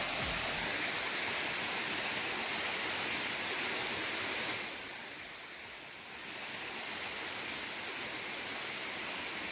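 Waterfall and stream: a steady hiss of falling and rushing water, a little quieter for a second or so about halfway through.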